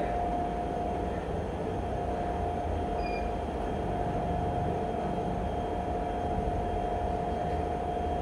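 Treadmill motor and belt running steadily: a constant hum with a low rumble and a steady whine, with no footfalls.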